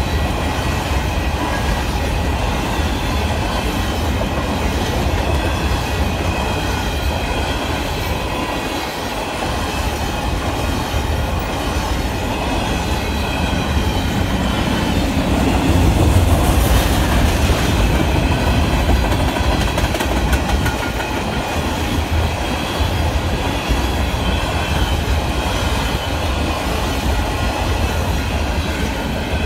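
CP Rail freight train of covered hopper cars rolling past: a steady noise of steel wheels on the rails, with thin steady high tones above it. It grows a little louder about halfway through.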